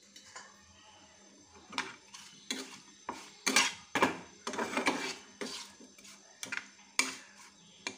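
Steel spatula scraping and knocking against a frying pan while chopped tomato and onion are stirred in oil. The strokes come in quick runs, starting about two seconds in and busiest in the middle.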